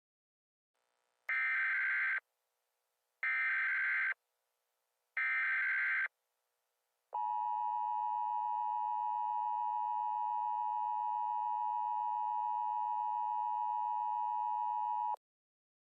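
Emergency Alert System header: three short bursts of buzzing SAME data tones about two seconds apart, then the EAS attention signal, a steady two-tone alarm held for about eight seconds before it cuts off. Together they announce an emergency broadcast message.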